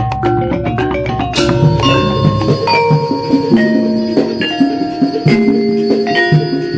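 Gamelan-style music: tuned metal keys struck in a running pattern, each note ringing on and overlapping the next, with a low drum or gong underneath in the first couple of seconds.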